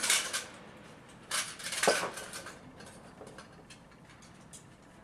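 Hard objects clattering and clinking as they are handled, in two short bursts near the start and around a second and a half in, with a brief scrape or squeak near two seconds, then a few light scattered clicks.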